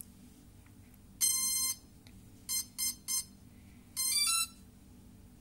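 Cheerson CX-20 quadcopter's startup beeps on power-up: one long electronic tone about a second in, three short beeps, then a quick rising run of notes.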